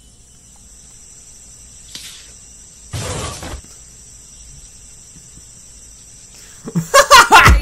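Steady high-pitched drone of insects, with a short loud noise about three seconds in. Loud music with a heavy bass starts near the end.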